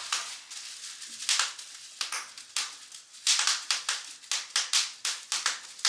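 Bubble wrap being popped by hand: a string of sharp, irregular pops and crackles, some in quick little clusters.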